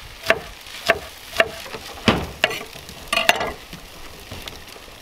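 A knife chopping green onions on a wooden cutting board and a spatula stirring egg fried rice in a frying pan: a run of sharp, irregular taps, about two a second, over a faint sizzle.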